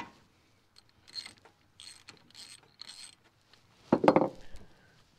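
Ratchet wrench backing out the 14 mm front differential drain plug: a sharp crack as the plug breaks loose, then several short ratcheting strokes, and a louder clatter about four seconds in.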